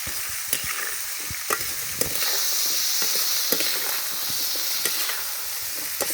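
Shallots sizzling in hot coconut oil in an iron pan while a spatula stirs them, with scattered scrapes and taps against the pan. The sizzle grows louder for a couple of seconds about two seconds in. The salt just added helps the onions sauté and brown.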